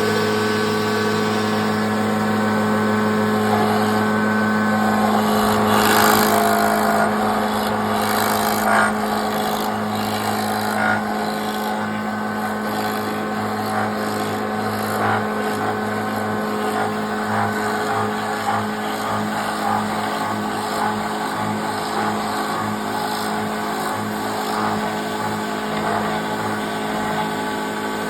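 Electric power tool motor running steadily while boring a hole in wood, with short cutting noises scattered through it, heaviest a few seconds in.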